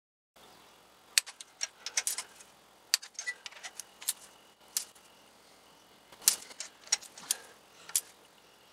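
Ratchet wrench clicking in short irregular runs as spark plugs are tightened down to torque with a socket on a long extension. There are two bursts of clicking, the first beginning about a second in and the second in the last few seconds.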